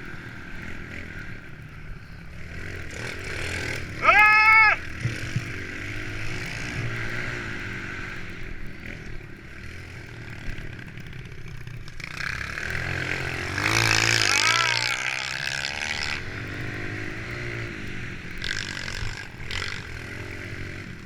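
Several small single-cylinder four-stroke pit bikes running, their engines rising and falling in pitch as the riders open and close the throttle. A bike revs up loud briefly about four seconds in, and louder close passes come a little past the middle.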